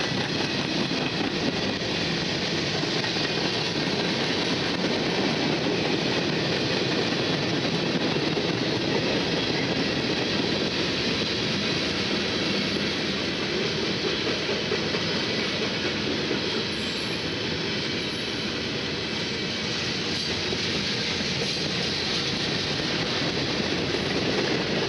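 Freight train cars rolling past close by: a steady, unbroken noise of steel wheels running on the rails as covered hoppers and tank cars go by.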